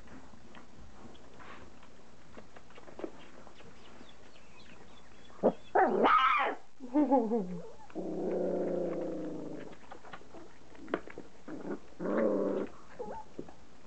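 Young standard poodle puppies crying: a loud squeal about six seconds in, a falling yelp just after, then a long drawn-out cry of about two seconds, and another short cry near the end, with faint clicks of puppies licking at soaked kibble between.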